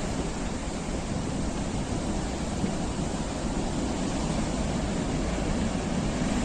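Atlantic Ocean surf: a steady wash of breaking waves.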